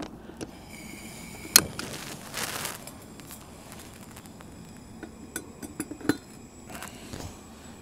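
Small metal camping cookware clinking and knocking as a tea setup is handled: a few sharp clinks, one ringing on for a couple of seconds near the start, with a brief rustle.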